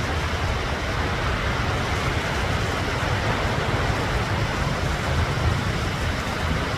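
Ocean surf: a steady wash of noise with a heavy low rumble, without distinct breaks between waves.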